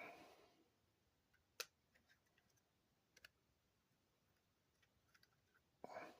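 Near silence broken by a few faint clicks and two short scuffs: hands handling a polymer pistol frame while pressing adhesive grip tape onto it.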